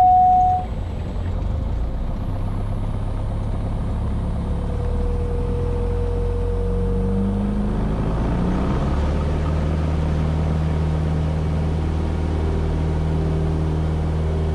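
Cessna 172S's four-cylinder Lycoming IO-360 engine and propeller heard from the cabin, powering up for the takeoff roll: the drone climbs in pitch about halfway through, then holds steady at full power. A short steady tone sounds at the very start.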